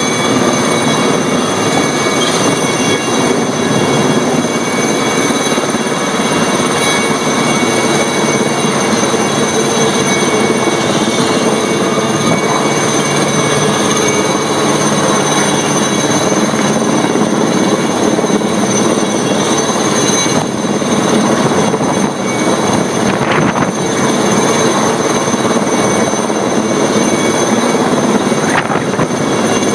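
Helicopter hovering overhead with a load on a long line: steady rotor and turbine noise with a high whine.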